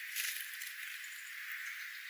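Outdoor nature ambience: a steady high hiss with a short rattling burst about a quarter second in.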